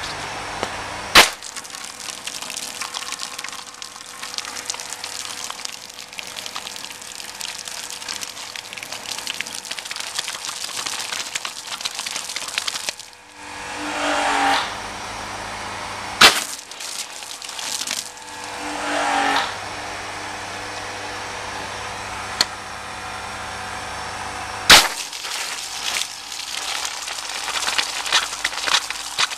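Water jet spraying onto car paintwork and wet paving: a steady hiss and spatter that cuts out briefly twice past the middle. Three sharp clicks stand out, about a second in, around the middle and late on.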